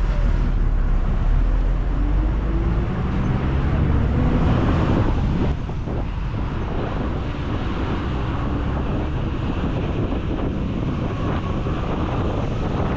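Bus engine and road noise heard from on board, with wind buffeting the microphone. The engine tone rises over the first few seconds as the bus picks up speed, then settles into a steady rush.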